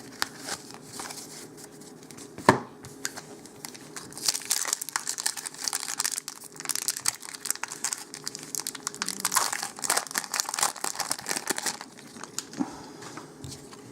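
A Magic: The Gathering booster pack's foil wrapper being torn open and crinkled. There is one sharp crack a couple of seconds in, then several seconds of dense crinkling and tearing that dies down near the end.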